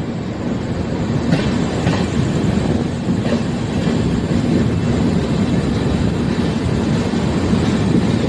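Mahamana Express passenger train rolling on the track, heard from on board: a steady low rumble with a few sharp clicks of the wheels over rail joints.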